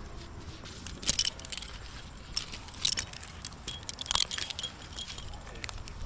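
Scattered metal clinks and rattles of climbing hardware, such as carabiners and rigging gear, jangling several times over a low steady rumble.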